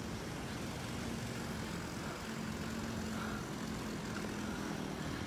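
Steady, distant engine drone with a faint hum.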